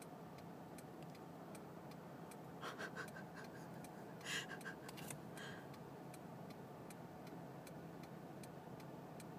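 Faint, regular clicking of a car's indicator flasher, about three ticks a second, in a quiet cabin with the engine dead. A few faint brief sounds come about three and four seconds in.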